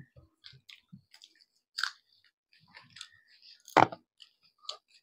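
Close-up eating sounds of chicken leg in gravy with rice: scattered wet chewing and lip smacks, with one sharp, louder click about four seconds in.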